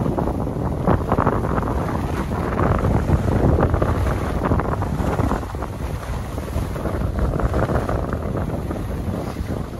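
Wind rushing over the microphone of a moving skier, with skis hissing and scraping over packed groomed snow.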